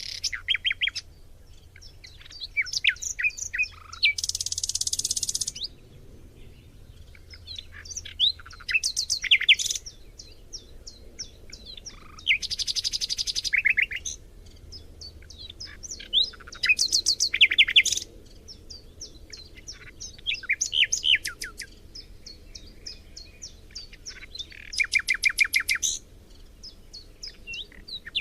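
Forest songbirds singing: a new phrase every few seconds, made of rapid runs of chirps and trills, some of them dense and buzzy, with short quiet gaps between.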